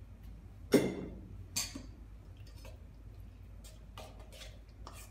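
A glass wine bottle set down on a wooden counter with a sharp knock about a second in, a second softer knock shortly after, then a few light clicks of a spoon stirring oats in a stainless-steel bowl.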